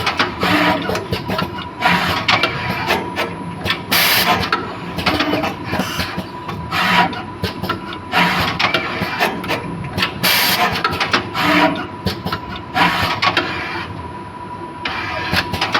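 Automatic wire soldering machine running through its cycle: many short hissing bursts at irregular intervals, one every half second to two seconds, mixed with short mechanical moves, over a steady thin whine.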